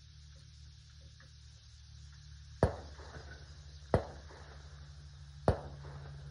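Three sharp gunshots at a rifle range, about 1.3 to 1.5 seconds apart, each with a short echoing tail. A low steady hum runs underneath.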